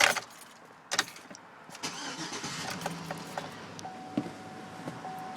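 2007 Chevrolet Avalanche's 5.3-litre V8 being started. Two sharp clicks come first, then the engine catches about two seconds in and settles into a steady idle. A thin steady tone comes and goes near the end.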